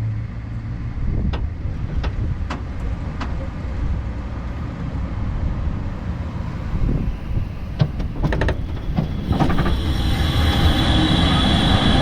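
Driving noise at the rear of a VW converted to DC electric drive: a low road and drivetrain rumble with scattered clicks and rattles. It grows louder near the end, when a steady whine joins in.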